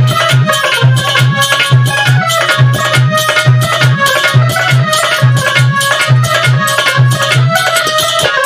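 Instrumental interlude of Indian devotional folk music: a harmonium playing a melody in held notes over a steady rhythm of deep dholak drum strokes.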